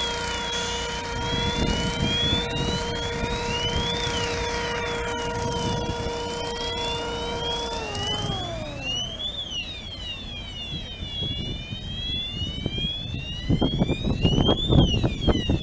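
Fire engine siren wailing, repeatedly rising and falling in pitch. Under it a steady machine whine runs down in pitch and fades about halfway through. Near the end, louder low rumbling comes in.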